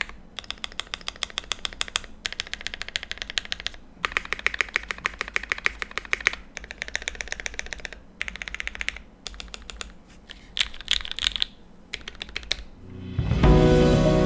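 Typing on a Think 6.5 V2 gasket-mounted mechanical keyboard with Tealios linear switches, an FR4 plate and GMK keycaps, its sound damped by foam and gaskets: fast keystrokes in bursts with short pauses between them. Music comes in near the end.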